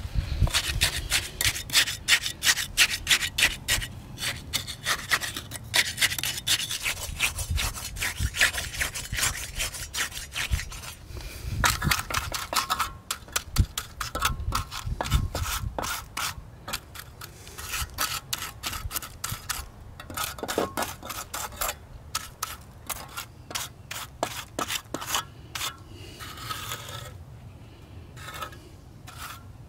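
Steel hand trowel scraping and smoothing wet concrete, in many short, irregular strokes, as the concrete cap around a post's base is finished.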